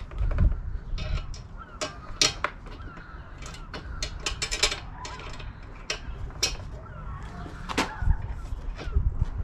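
Small metal clicks and clinks of a bolt, washers and socket wrench at a motorcycle rear rack's mounting point, with a quick run of ratchet clicks about halfway through. Birds call faintly in the background.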